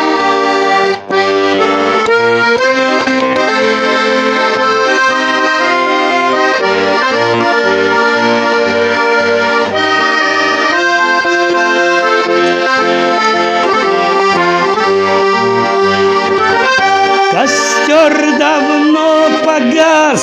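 Instrumental music: held chords over a stepping bass line, the introduction to a Russian song about gypsy life. Near the end a wavering higher melodic line joins in.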